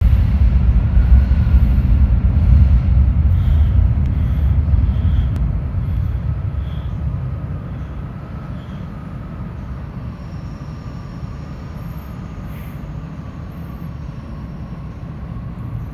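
Electric metro train running through a tunnel, heard from on board. A heavy low rumble is strongest for the first five or six seconds, then eases to a steadier, quieter run, with a faint whine that slowly falls in pitch.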